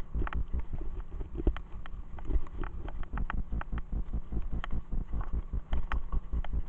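Mountain bike riding fast over a bumpy forest track: a low tyre rumble with frequent irregular knocks and clicks as the bike jolts over the surface.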